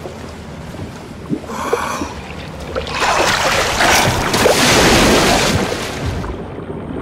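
Choppy sea water sloshing and splashing around a freediver floating at the surface. A louder rush of splashing water runs through the middle and cuts off suddenly near the end.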